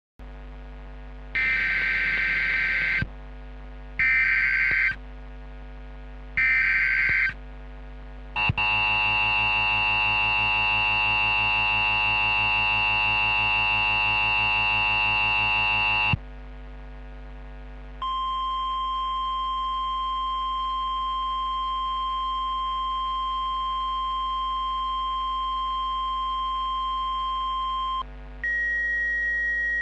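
Mock Emergency Alert System alert tones. Three short bursts of the digital header data come first, then a long buzzy alert tone lasting about eight seconds. After a short gap a steady single-pitch tone like the weather-radio alert tone sounds for about ten seconds, and a higher tone starts near the end, with a low hum underneath throughout.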